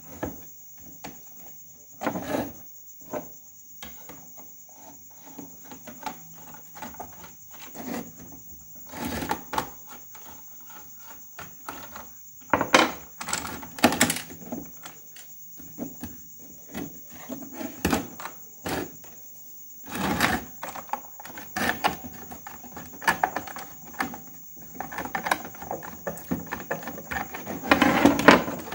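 Plastic case of a portable FM radio being handled and pried apart by hand with a tool: irregular clicks, knocks and scrapes, the loudest cluster near the end, over a steady high-pitched whine.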